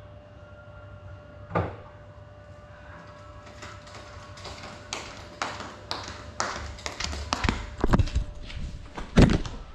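Handling noise around a crashed FPV drone: a single knock about a second and a half in, then a growing run of taps and knocks as a hand reaches the drone and picks it up. The loudest thump comes near the end.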